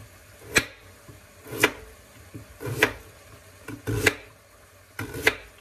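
Kitchen knife chopping vegetables on a cutting board: five separate knife strokes knocking on the board, roughly one a second.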